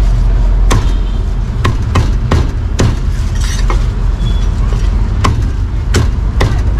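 Meat cleaver chopping meat on a chopping board: about nine sharp chops at an uneven pace, over a low rumble of street traffic.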